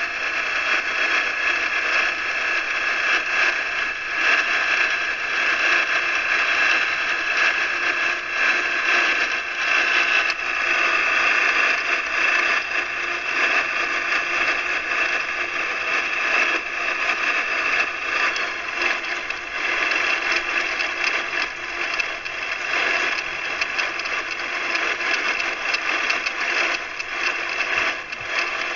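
Ultralight aircraft's engine and propeller droning steadily in flight, mixed with the rush of wind through the open cockpit. The tone shifts slightly about ten seconds in.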